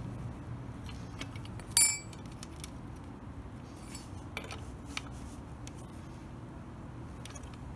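A sharp metallic clink that rings briefly, about two seconds in, then a fainter clink and a few small ticks of metal being handled.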